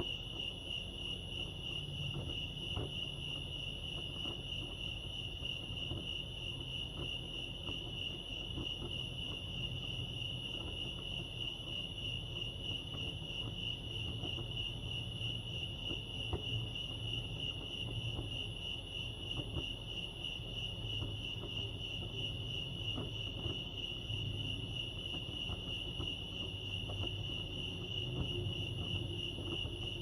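Crickets chirping in a steady, unbroken high-pitched chorus, with a faint low rumble underneath.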